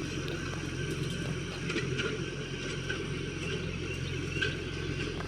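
Tractor engine running steadily as a low, even drone.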